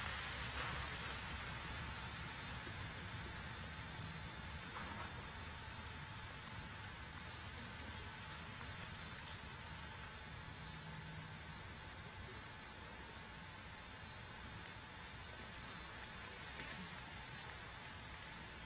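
A high, short chirp repeated evenly about twice a second, from a small calling animal, over a steady outdoor background hiss.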